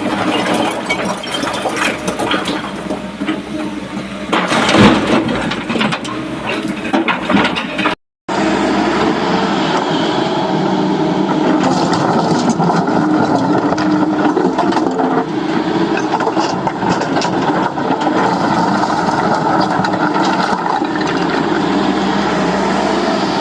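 Heavy diesel earthmoving machinery running steadily, with a loud rough surge of noise about five seconds in. The sound cuts out abruptly for a moment at about eight seconds, then the engine noise carries on evenly.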